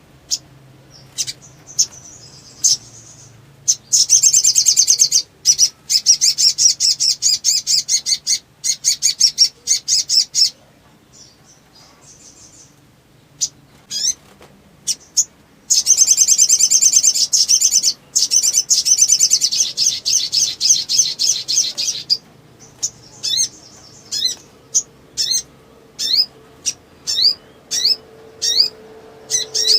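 A sogon, a small sunbird-family songbird, singing excitedly in full song. It gives two long, fast, high rattling trills, one about four seconds in and one about sixteen seconds in. Short sharp chirps come between them, and a quick run of single chirps near the end.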